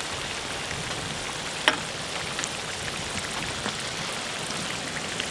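Young potatoes frying in rendered lamb fat-tail fat: a steady sizzle with scattered small crackles and one sharper pop about a second and a half in.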